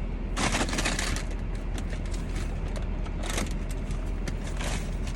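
Crinkling and rustling of paper or plastic food packaging, in a few short bursts with small clicks, as someone hunts for a straw. A steady low hum from the car's running engine lies under it.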